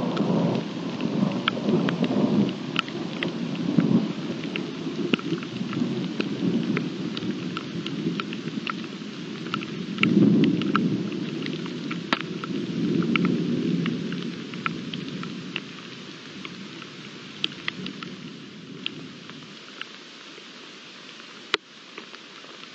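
Thunder rumbling over steady rain, with single raindrops ticking close by. The rumble swells at the start and again about ten seconds in, then dies away and leaves only the rain. One sharp click comes near the end.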